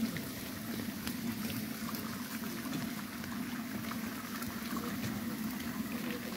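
Meat curry boiling in clay pots over a wood fire, a steady bubbling with scattered small ticks and pops.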